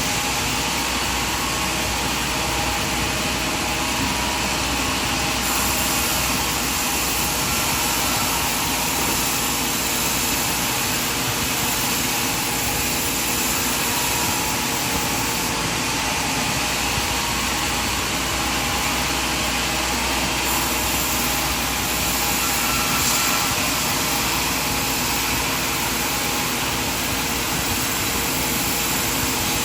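Sawmill machinery running with a steady, dense whir.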